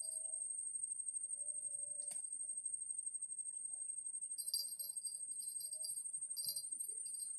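Insects shrilling steadily at a very high pitch, with a second pulsing chorus joining about halfway through. A single sharp click about two seconds in.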